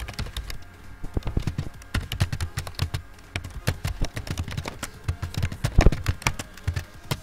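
Typing on a computer keyboard: irregular keystroke clicks in quick runs, with one heavier stroke about six seconds in.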